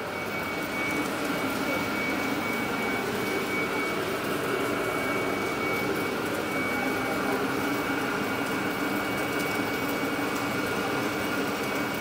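Steady machine drone with a thin, constant high whine, from an automated weld build-up rig turning a worn Caterpillar dozer track idler as it lays new metal onto the tread.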